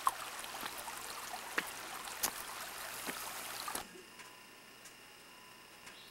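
Shallow rocky creek running: a steady rush of water with a few sharp clicks. It cuts off abruptly about four seconds in, leaving only a faint hiss with a few thin steady tones.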